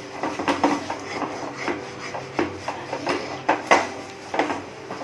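A spoon scraping and knocking against a pan in irregular strokes while stirring a thick milk-powder paste, the stiff mixture dragging on each stroke.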